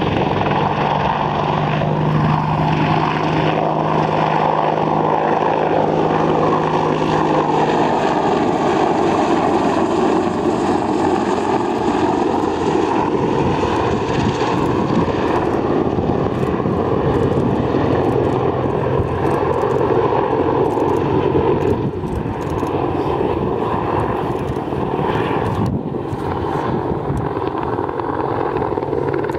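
AH-64 Apache attack helicopter flying, its rotors and twin turboshaft engines making a loud, continuous sound whose pitch slowly sinks and then rises again around the middle.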